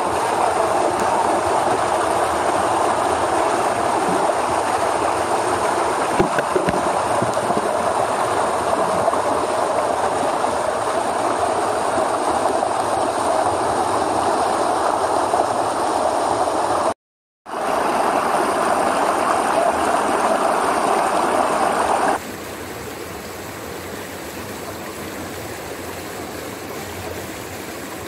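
Mountain stream water rushing and splashing over rocks close by, a loud steady rush. It cuts out for a moment about two-thirds through, then about 22 seconds in gives way to a quieter, more distant flow of the stream.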